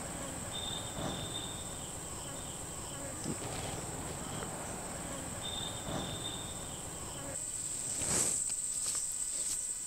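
Insects chirring in one steady high-pitched drone. Twice, a brief lower steady note joins it for about a second.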